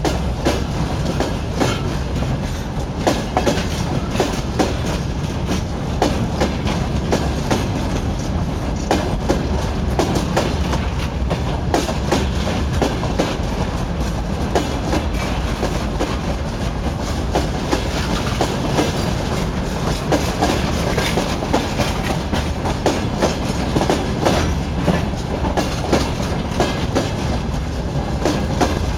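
Freight train wagons rolling past, wheels clicking irregularly over the rail joints above a steady low rumble.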